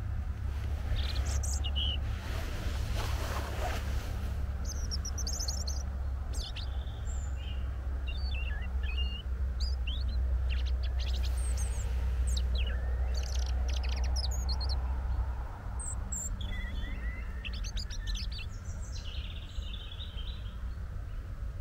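European robin singing in short, high, varied phrases, over a steady low rumble that eases about three quarters of the way through.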